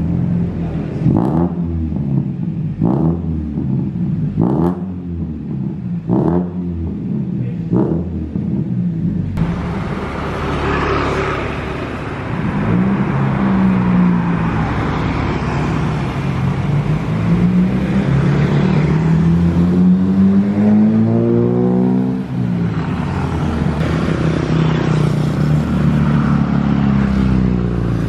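Toyota Great Corolla engine through an NDK DK-03v3 aftermarket muffler on the original header and resonator: five short rev blips about every two seconds, then the car accelerating along the road with the engine pitch rising several times.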